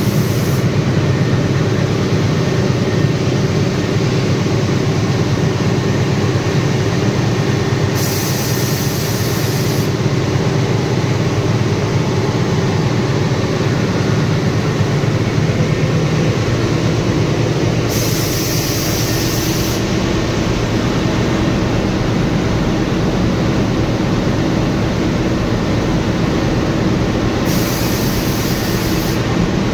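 Railway locomotive diesel engine running loud and steady. A high hiss of about two seconds comes in about every ten seconds.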